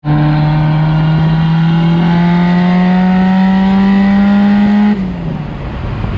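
A car engine accelerating hard, its pitch climbing steadily for about five seconds, then dropping suddenly and giving way to a rougher, quieter noise.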